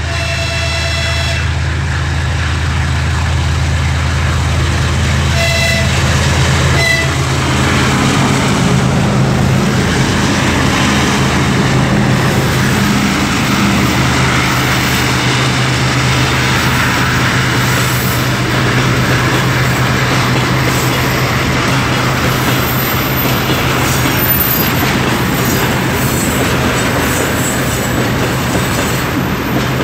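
Freight train led by CFM TE33AC diesel-electric locomotives passing close by. Its horn sounds once for about a second, then gives two short toots about five and a half and seven seconds in, over the locomotives' steady diesel engine drone. From about seven seconds the locomotives pass and tank wagons roll by with a continuous rumble, and a thin high wheel squeal joins in the last several seconds.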